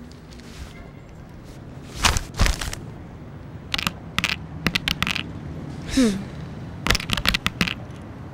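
Sharp clicks of Scrabble tiles being set down letter by letter, in quick runs, as words are spelled out. About two seconds in there are two louder rustling hits of paper, and about six seconds in a brief sound falling in pitch.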